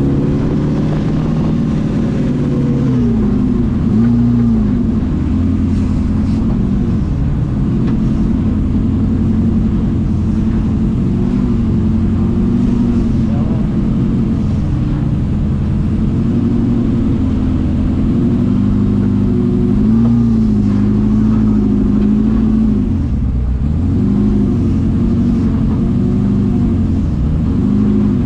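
Engine of an FJ40-based off-road trial buggy heard from inside its open cab, running loud and steady under load, its revs repeatedly rising and dipping as the throttle is worked.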